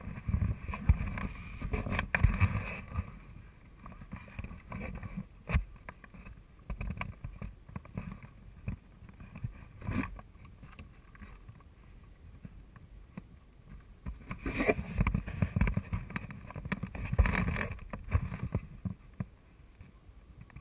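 Footsteps and brushing through dry scrub on rocky ground, with a low rumbling of wind on the microphone. It comes in irregular bouts, loudest over the first few seconds and again from about fourteen to eighteen seconds in, with a few sharp clicks between.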